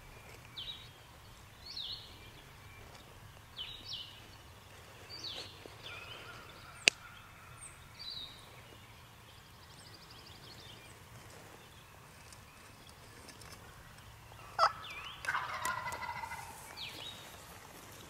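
A wild turkey gobbler gobbles once about fifteen seconds in, a rattling call that falls in pitch and lasts about two seconds, the loudest sound here. Before it, a songbird repeats a short downward-slurred chirp every second or so, and a single sharp click sounds about seven seconds in.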